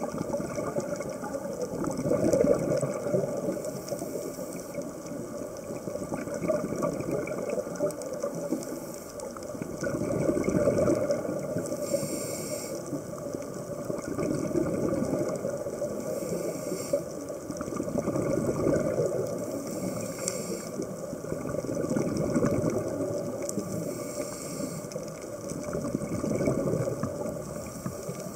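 Scuba diver's breathing heard underwater: bursts of exhaled bubbles swelling about every four seconds, with a short hiss of the regulator between them.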